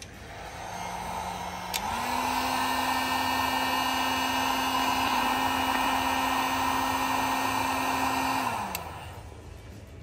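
Heat gun blowing hot air to shrink heat-shrink tubing over freshly soldered switch wires. Its fan starts just after the beginning, its hum steps up in pitch with a click about two seconds in, and it runs steadily. It is switched off near the end and winds down with a falling hum.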